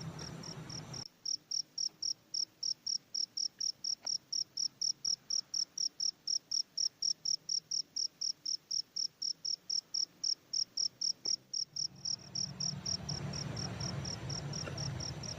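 Night insect chirping: an even train of short high-pitched pulses, about four a second. A low rustling background falls away about a second in and returns near the end.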